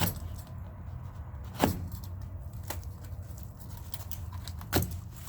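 Small hardware parts being handled and set down: three sharp knocks or clatters, at the start, about a second and a half in, and near the end, with a few faint ticks between them, over a steady low hum.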